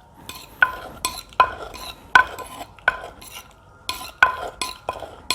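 Pestle pounding cherry tomatoes in a mortar to crush out their juice: irregular knocks, about one every half second to a second, each with a short ring.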